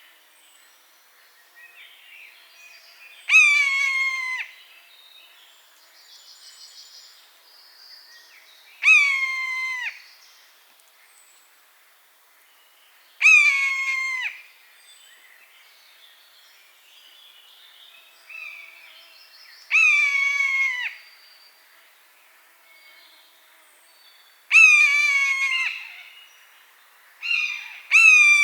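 Common buzzard giving its mewing call, a drawn-out downward-slurred cry about a second long, repeated roughly every five seconds, with a quicker double call near the end. Faint small-bird chirps sound between the calls.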